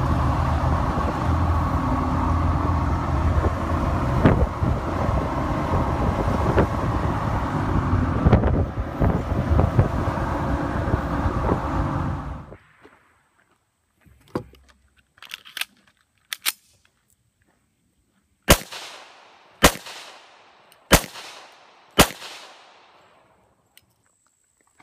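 A loud, steady rumbling noise cuts off suddenly about halfway through. Then come a few faint clicks and four pistol shots, about a second apart, from a Smith & Wesson M&P9c 9 mm.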